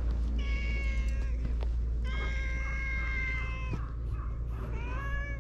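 A cat meowing three times: a short call, then a long drawn-out one, then a short rising one near the end, over a steady low rumble.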